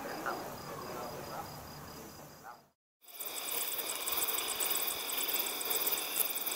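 Night ambience: a recording with short, scattered calls and a steady high whine fades out and cuts to silence about halfway through. After a moment a second night recording starts, full of crickets chirping in a dense, high-pitched, rapid pulsing.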